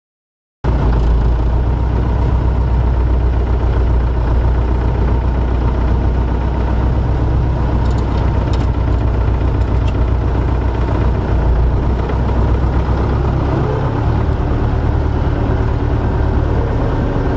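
Diesel engine of an MTZ-82 tractor running steadily, heard from inside its cab; the sound cuts in abruptly under a second in, and its low note shifts slightly near the end.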